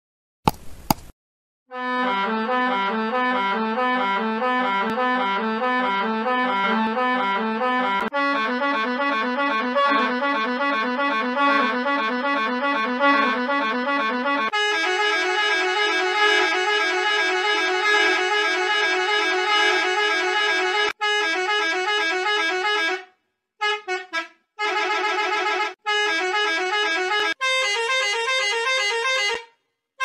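School bus horn in a run of edited sound-effect variations. Long held blasts carry a fast, even wobble and step up in pitch twice, then break into a string of short honks with brief gaps near the end. A short sharp burst comes just before the first blast.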